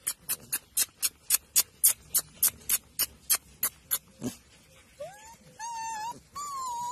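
A quick, even series of sharp clicks, about four a second, for the first few seconds, then puppies whining in a few high notes that rise and waver.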